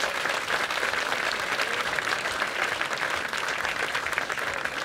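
An audience applauding, many hands clapping at a steady level.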